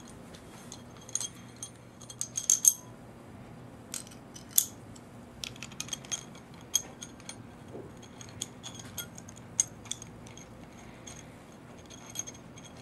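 Irregular metallic clinks and taps of steel mounting plates, screws and a hand tool being fitted to a machine vise, with a few louder clanks about two and a half and four and a half seconds in.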